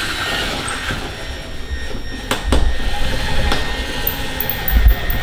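Cordless drill running a small pilot bit through the steel door skin of a VW Transporter. A few sharp knocks and low thumps come from about halfway on.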